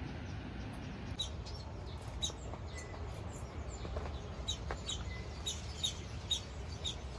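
Birds chirping, a run of short high notes repeated about once or twice a second, over a steady low background rumble.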